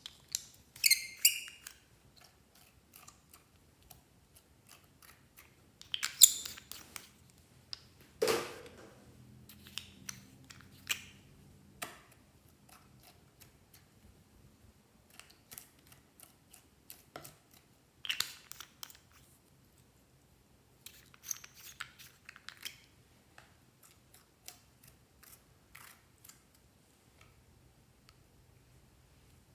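Glossy slime being worked by hand: scattered sticky clicks and crackly squelches, with a few louder squishes now and then.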